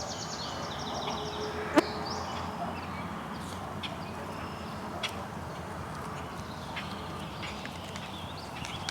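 Steady rush of a flooded, overflowing creek, with a bird's rapid high trill in the first two seconds and one sharp click near two seconds in.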